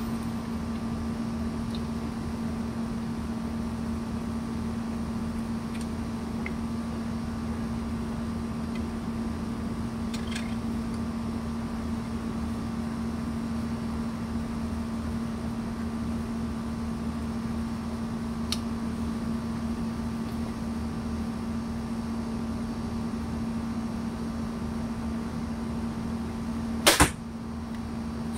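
A Barnett XP 370 crossbow fires near the end: a sharp, loud double snap as the string is released. A steady low hum runs underneath, with a couple of faint clicks from handling the crossbow earlier on.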